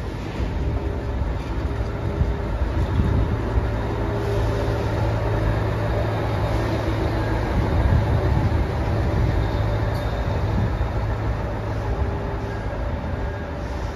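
Colas Rail track tamping machine DR73910 passing along the line under its own power, its diesel engine running with a steady low drone and the wheels rolling over the rails, loudest about eight seconds in.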